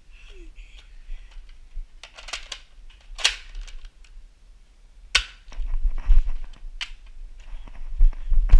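Nerf dart blaster clacking, several sharp clicks of priming and firing a second or two apart, amid rustling and handling noise.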